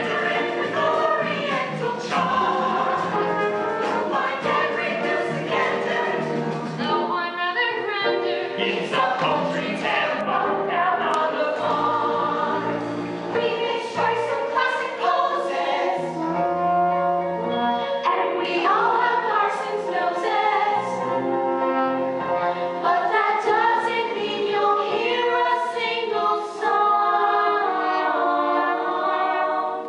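A musical-theatre number: a group of voices singing together over instrumental accompaniment.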